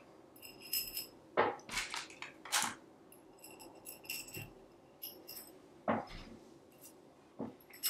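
Metal tensegrity struts clinking and tapping against each other as they are handled and cords are threaded into their holes: a scattered run of light clicks, several with a short bright ring.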